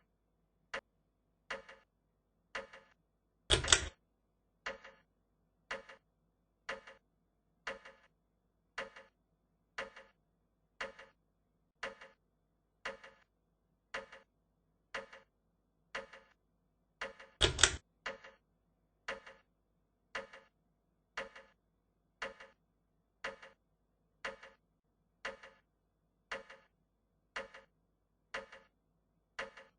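Hunter Coronado 52-inch ceiling fan ticking about once a second as it turns, with a louder double clack roughly every fourteen seconds.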